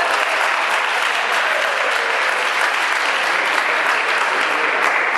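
Spectators applauding steadily after a point is won in a table tennis match.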